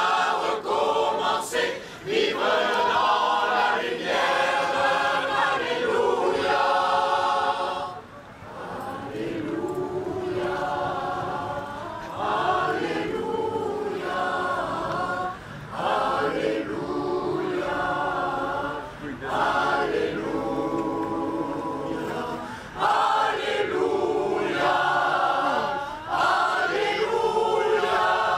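Mixed amateur choir of men and women singing unaccompanied, in phrases of held notes with short breaths between them. The singing is softer through the middle and grows loud again near the end.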